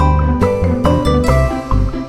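Background music: an upbeat tune of short plucked or mallet-struck notes over a steady bass beat.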